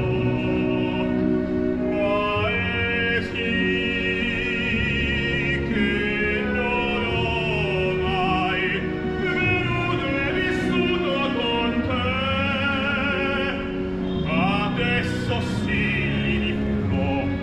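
Operatic singing in the background music: a voice holding long notes with heavy vibrato, moving from note to note over continuous accompaniment.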